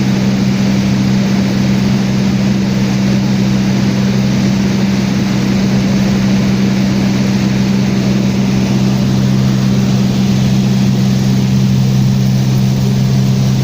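Small airplane's piston engine and propeller droning steadily in flight, a loud, even hum with two strong low tones that never changes.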